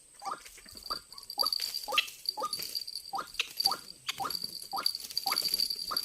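White-breasted waterhen (ruak-ruak) calling: short harsh notes repeated about three times a second, over a steady high-pitched buzz.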